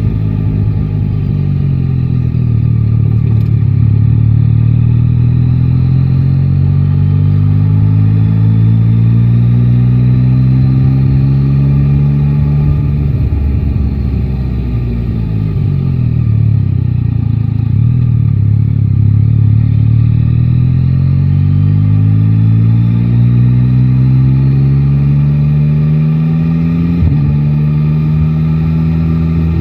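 Yamaha Tracer 9 GT's 890 cc inline-three engine pulling under steady acceleration, its pitch rising slowly. About halfway through the revs fall away, then they climb again. Near the end there is one quick drop in pitch, after which the engine runs on steadily.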